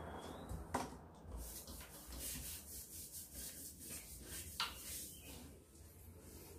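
Faint rubbing as a hand smears a wet powder paste over a pane of glass, in uneven strokes, with two brief sharp sounds, one under a second in and one past the middle.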